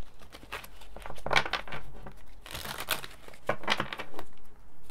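A deck of tarot cards being shuffled by hand: several short papery rustling bursts of card against card.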